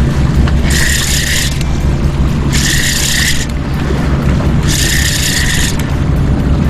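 Fishing reel being cranked in three short bursts about two seconds apart, a whirring, ratcheting mechanical sound, over a steady low rumble.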